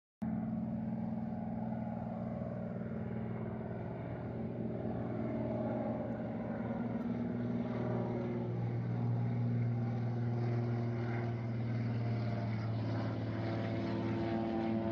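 Small propeller plane's engine droning steadily as it flies past low, growing a little louder and fuller toward the end.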